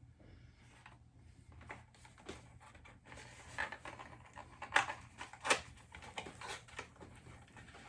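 Products and their packaging being handled: a busy run of small clicks and rustles, with two sharper knocks a little past halfway, as of items being set down.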